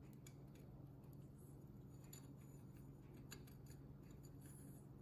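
Near silence over a steady low hum, with a few faint, light clicks as the breather cover is worked off a Kohler K301 engine.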